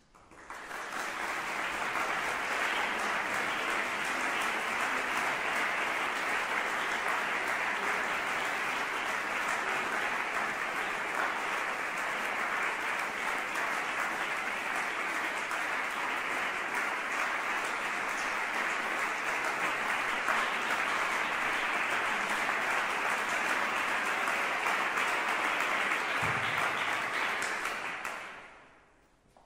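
Audience applauding steadily, swelling up within the first second and dying away near the end.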